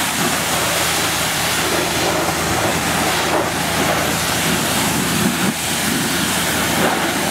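Pressure washer wand blasting a high-pressure jet of water onto wet pavement and a truck's body: a steady hiss and spray, with a steady low hum underneath.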